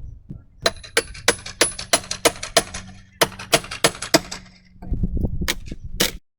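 Nails being driven into wooden fascia board: a run of sharp ringing strikes about three a second, a pause, a second run, then a few single strikes near the end.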